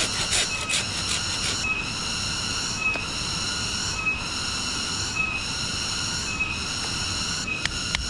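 A cicada's unbroken, shrill, electric-sounding call, with a brighter pulse about every second, like an alarm going off nonstop. Near the end come a couple of sharp knocks of a knife cutting into bamboo.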